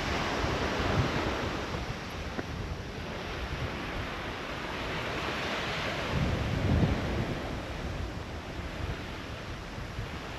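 Sea waves washing against the shore in a steady wash, with wind buffeting the microphone in gusts, strongest near the start and about six to seven seconds in.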